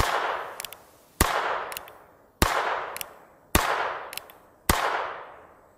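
A North American Arms .22-calibre mini revolver fired five times at a steady pace, a shot about every 1.2 seconds, each report fading out over about a second. A faint double click comes between shots.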